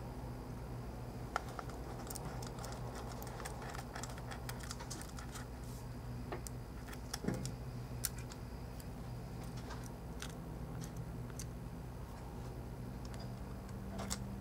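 Irregular light clicks and ticks of a small screwdriver and tiny screws being handled and driven into an iPhone 4's frame, with a steady low electrical hum underneath.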